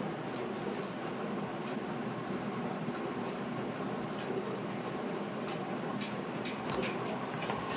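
Cow being milked by hand: a steady hiss of milk streams squirting into a pail, with a few sharper squirts about half a second apart in the second half.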